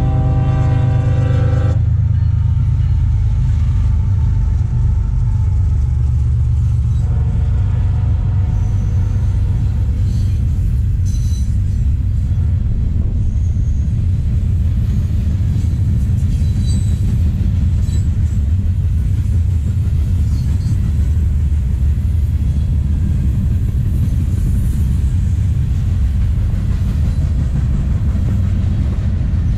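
CSX diesel freight train: the locomotive's horn sounds for about two seconds at the start, then the train rolls past close by with a steady low rumble of freight cars on the rails.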